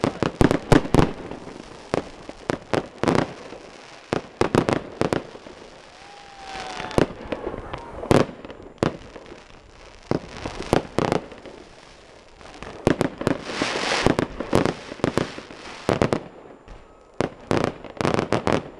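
Fireworks display: shells bursting in quick, irregular volleys of sharp bangs, with crackling between the volleys.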